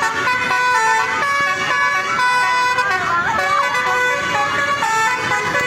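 A tour bus's Basuri telolet horn plays a tune: a string of held, horn-like notes that step from one pitch to the next every half second or so.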